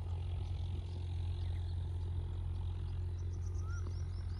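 Open-field ambience: a steady low rumble, with a quick run of high bird chirps and a short rising-then-falling whistled call near the end.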